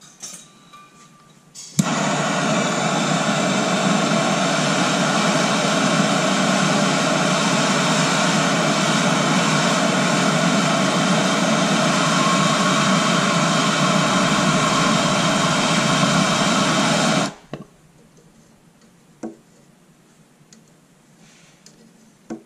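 Gas torch flame heating a copper pipe joint for silver soldering: a steady noise that starts suddenly about two seconds in and cuts off suddenly about fifteen seconds later.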